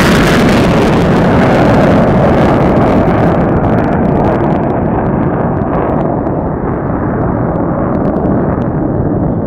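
F-15E Strike Eagle twin jet engines in afterburner, a loud roar as the jet pulls up and climbs away. The hissing top of the sound fades from about three and a half seconds in as it recedes, leaving a lower rumble.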